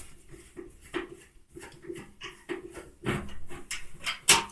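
Screwdriver unscrewing the bolts that hold a washing machine's front panel: irregular scrapes and clicks of metal on metal, with a sharper knock near the end.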